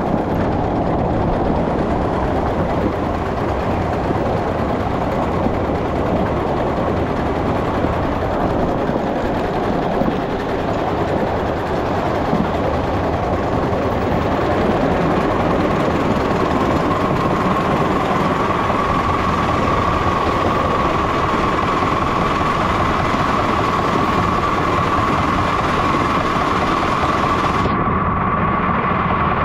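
Miniature ride-on train running on its track, a steady continuous running noise. About halfway through, a steady high tone joins in and holds.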